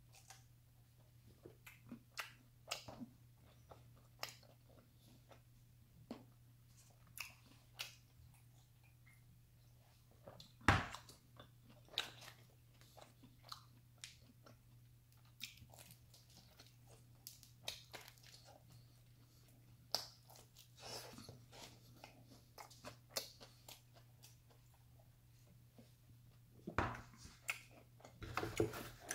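Close-up chewing of pepperoni pizza, with irregular crunches of crust and small wet mouth clicks over a low steady hum; one crunch about a third of the way in is louder. Near the end, the cardboard pizza box is handled.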